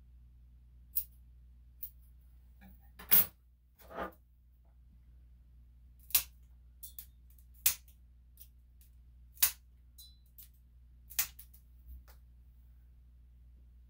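Grooming scissors snipping a dog's coat: single sharp snips at an uneven pace, one every second or two, with one duller knock about four seconds in.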